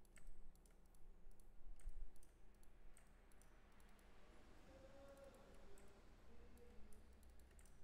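Faint, scattered clicks of a computer mouse, made while edges are selected with the mouse.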